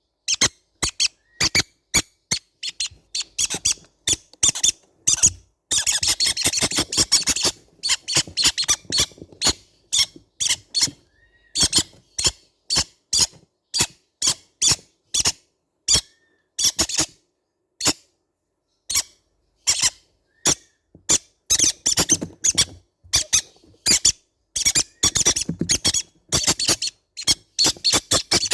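Baby green-cheeked conures calling in a rapid, unbroken run of short, high squeaky chirps. The calling grows denser about a quarter of the way in and again near the end.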